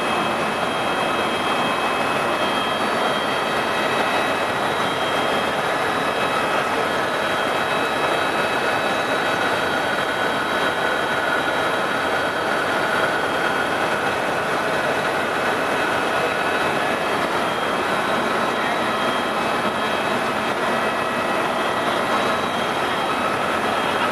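Steady in-flight cabin noise of a Eurocopter EC130 turbine tour helicopter in cruise: a constant rush of rotor and engine noise with a few steady high-pitched whines on top, heard from inside the cabin.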